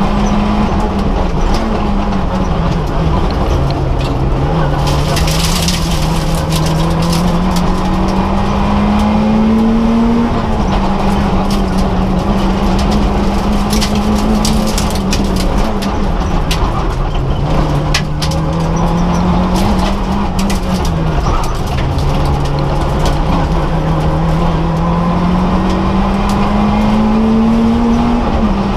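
Citroën AX rally car engine heard from inside the cabin, its pitch climbing steadily as the car accelerates and dropping back several times as it slows for corners or changes gear. Bursts of clicks and rattles sound over the engine, most thickly about five seconds in.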